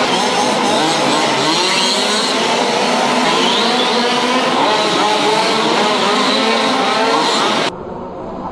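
Several 1/5-scale Losi gas RC cars' two-stroke engines with tuned pipes, racing and revving up and down in overlapping glides. About three-quarters of the way in, the sound cuts off abruptly to a quieter, duller background.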